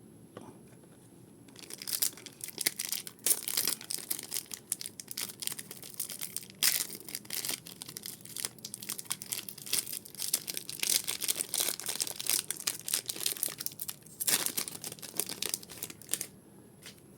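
Foil booster pack wrappers being torn open and crinkled by hand: a dense run of crackling and tearing that starts about two seconds in and stops shortly before the end.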